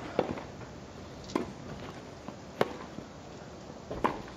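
Tennis ball struck back and forth in a rally: four sharp hits roughly a second and a quarter apart, over faint crowd background.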